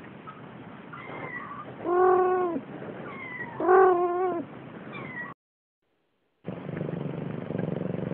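Siamese kitten meowing: two loud mewing calls about two and four seconds in, each rising then falling, with fainter little chirps around them. The sound breaks off in about a second of dead silence, then a steady low hiss.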